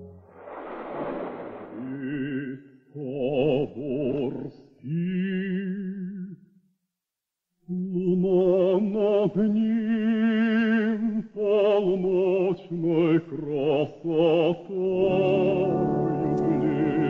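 Operatic singing with a wide, even vibrato over music. The voice sings in long held phrases, with a short break of about a second near the middle.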